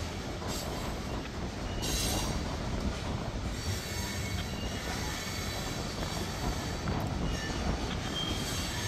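Union Pacific freight train of hopper cars rolling past, a steady rumble of wheels on rail with short high wheel squeals, the clearest about two seconds in.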